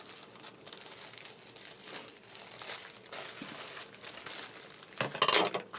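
Plastic poly mailer bag crinkling and rustling as it is handled and opened, with a much louder burst of crinkling near the end.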